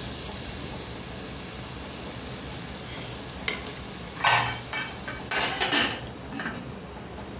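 Tomato-and-onion masala sizzling in oil in an aluminium pot, with a slotted spoon stirring it. About halfway through come a few sharp metallic clatters as the spoon is set down and the aluminium lid is put on the pot, the loudest about four seconds in.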